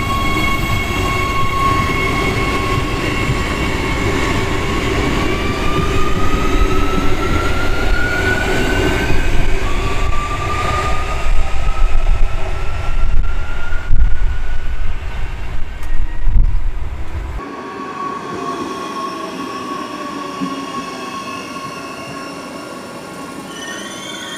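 Adelaide Metro 4000-class electric train pulling away, its traction motors whining and stepping up in pitch several times over a low rumble as it gathers speed. About two thirds of the way through the sound cuts to a quieter, steadier electric whine of another of these trains running past the platform, falling slightly in pitch.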